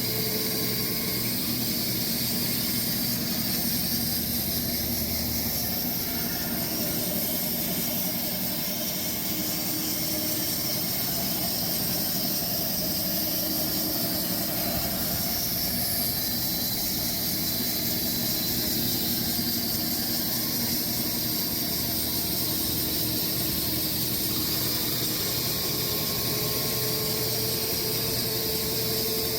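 Sawmill running steadily, its blade cutting lengthwise through a large walnut log, with a constant hiss and whine and no breaks.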